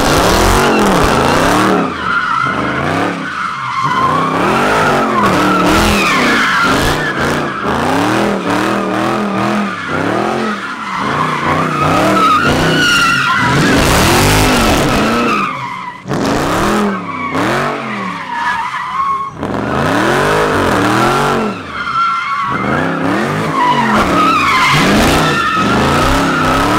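Dodge Charger doing donuts: the engine revs up and down over and over while the rear tires squeal continuously, with a few brief lifts off the throttle.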